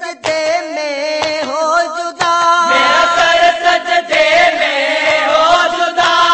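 Chanted singing of a marsiya, a Muharram elegy, the voice holding long notes that waver and glide from syllable to syllable.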